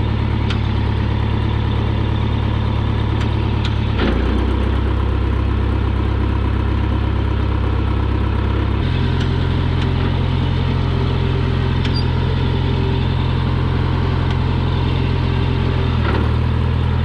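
A 1975 John Deere 450B bulldozer's four-cylinder diesel engine running steadily while the Hi-Lo-Reverse transmission is shifted through reverse, high and low with the four-speed in neutral. The engine note changes abruptly about four seconds in, again about nine seconds in, and near the end, as each range engages.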